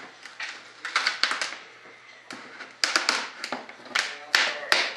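A parting-plane strip being pried off a waxed mold plug by hand. It gives a string of sharp snaps and cracks as the joint lets go, in clusters about a second in and through the second half.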